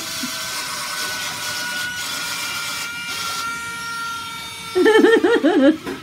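Suction fan of a remote-control wall-climbing toy car running with a steady high whine over an airy rush, the whine dropping slightly in pitch about three seconds in. A high-pitched voice exclaims briefly near the end.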